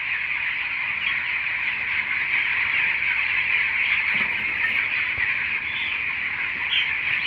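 A large flock of young poultry chicks cheeping all together in a dense, steady chorus, with a few sharper chirps standing out near the end.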